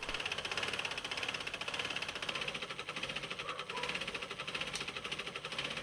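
Sewing machine stitching silk brocade, the needle mechanism clattering in a rapid, even rhythm throughout.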